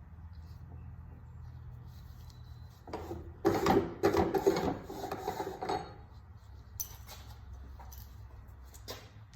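A metal wrench clinking and scraping against the oil drain plug, with a loud burst of clatter a few seconds in, then a couple of single clicks.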